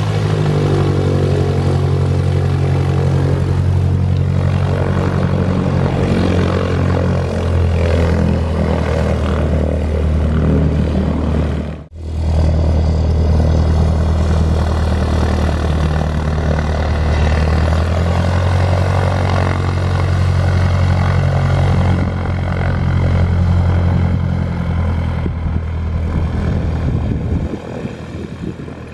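Cessna 152's four-cylinder Lycoming piston engine and propeller running at low power just after start-up, a steady low drone. The sound cuts out for a moment about twelve seconds in.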